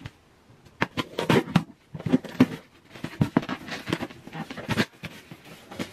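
Cardboard shipping box handled and opened by hand: a run of irregular scrapes, rustles and sharp knocks starting about a second in.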